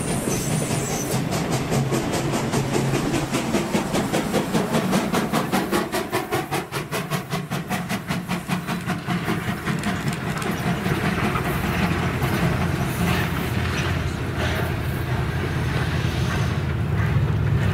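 A train running by, with a fast, even series of beats for the first half, easing into a steady low rumble.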